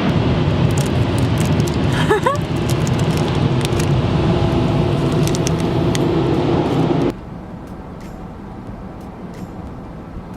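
Automatic car wash air dryer blowers running loudly against the car with a steady rush, cutting off abruptly about seven seconds in and leaving a much quieter steady hum.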